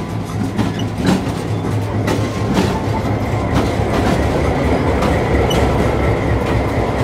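EMD FP7 diesel locomotive running close by, its engine humming steadily while its wheels click over the rail joints every half second or so.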